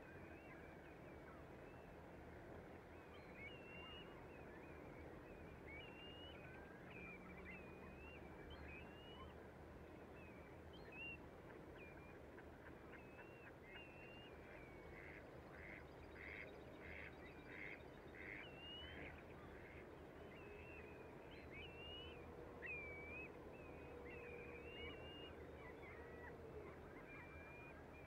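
Faint calls of distant waterbirds on an estuary: many short whistled chirps throughout, and a quick run of about ten honking, quacking calls midway.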